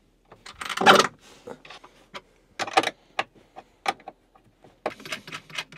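Small metal hardware clicking and rattling while bolts are fastened by hand with lock washers and nuts: a louder clatter about a second in, then scattered sharp clicks.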